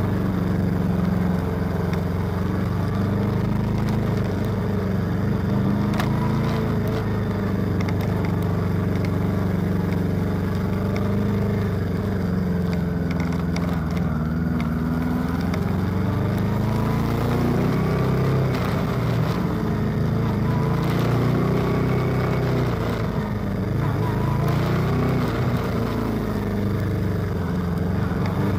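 Honda CB400 motorcycle engine running at low road speed, its pitch rising and falling several times as the throttle is opened and eased off.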